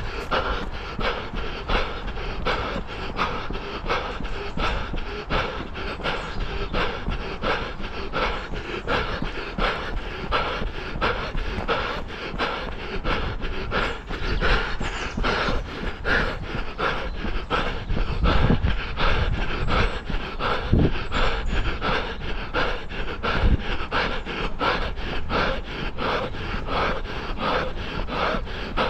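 A runner's own footsteps at a steady pace of about three strides a second, with heavy panting breath.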